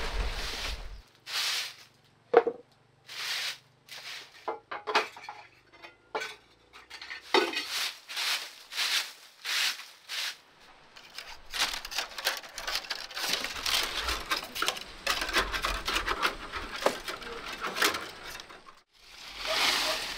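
A straw broom sweeping wood chips and shavings across a concrete floor: a run of separate swishing strokes, later coming faster and closer together, with one sharp knock about two seconds in.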